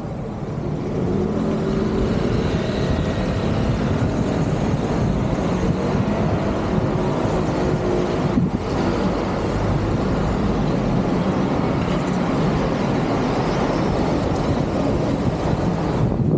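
Road traffic on a busy street: motor vehicles running past, their engines and tyre noise making a steady rush.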